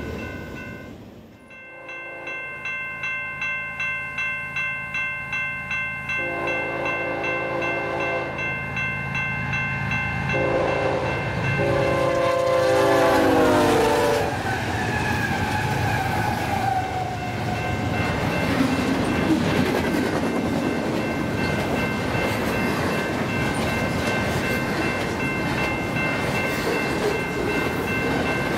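Railroad crossing bell ringing about three times a second as a BNSF intermodal train approaches at about 70 mph. The locomotive's air horn sounds a long blast, a short one and a long one that drops in pitch as the engine passes. The train's wheels and cars then rush by in a loud, steady noise while the crossing bell keeps ringing.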